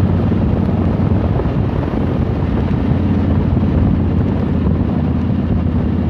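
Motorcycle under way at a steady cruise: the engine runs evenly under constant wind noise on the microphone.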